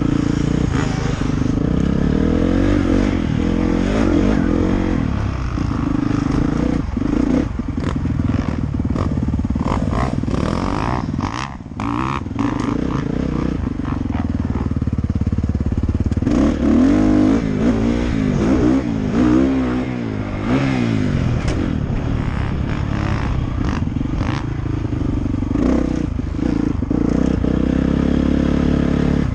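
Dirt bike engine being ridden off-road, the revs rising and falling with the throttle and dropping off briefly about a third of the way in, with short knocks and clatter from the bike over the rough track.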